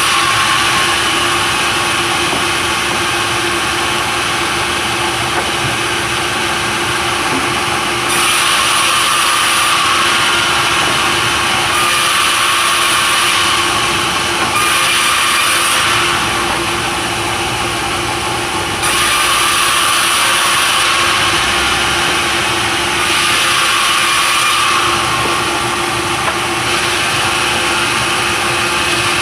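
Sawmill saw and its motor running steadily, the sound turning brighter and slightly louder in several stretches of a few seconds as the blade cuts through timber.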